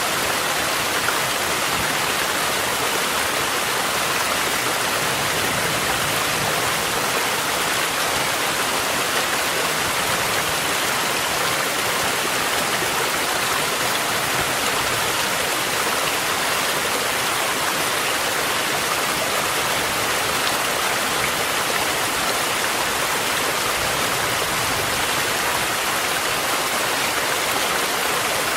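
Steady rushing of a mountain stream mixed with falling rain, an even wash of water noise.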